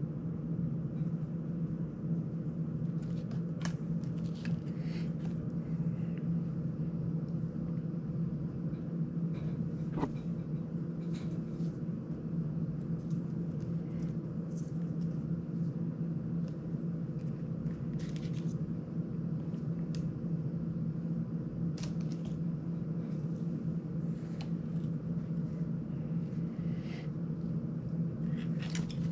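Steady hum of a desk fan running, with scattered small clicks and taps of plastic drone ducts and frame parts being handled.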